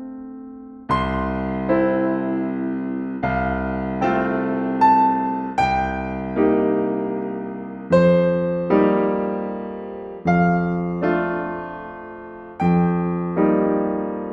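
Background music: slow, gentle solo piano, chords and single notes struck every second or so and left to ring and fade.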